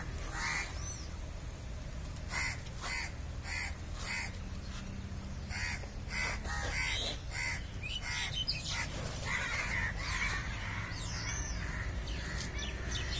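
Crows cawing: short harsh caws in runs of four or five, about two a second, with more scattered calls in the second half.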